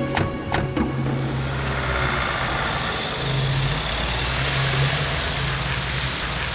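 Police vans' engines running steadily as the vans pull away. Two sharp knocks near the start, doors shutting.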